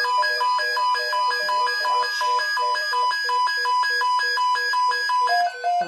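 Weather radio receivers sounding their alert alarm for a tornado watch: loud electronic beeping that jumps back and forth between pitches about three times a second. Near the end one beep pattern stops and a lower, single-pitched beep carries on.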